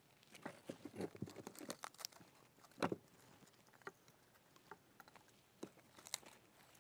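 Dried manzanita bark being crumbled by hand over a planted pot: faint, scattered crackles and light taps, with one louder crack about three seconds in.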